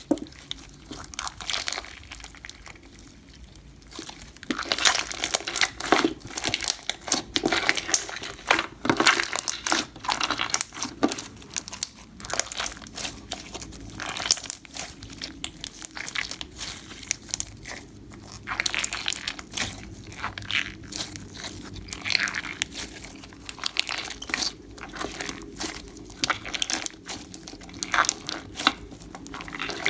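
Clear frog-spawn slime full of beads being squished, poked and stretched by hand, giving off dense, irregular crackling and popping clicks. It is quieter for the first few seconds.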